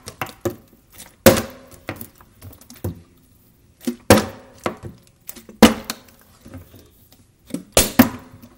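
Partly filled plastic water bottles flipped and landing on a stone countertop: a string of hard knocks, several of them loud, with lighter clatters between as the bottles bounce, tip or are set down.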